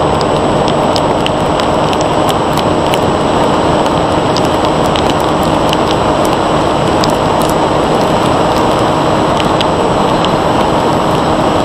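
Loud wind rush over the onboard camera of a Bixler 1.1 foam FPV plane in flight, over the steady hum of its Turnigy 2826-6 brushless motor and 8x3.4 propeller. Scattered sharp ticks of rain strike the airframe throughout.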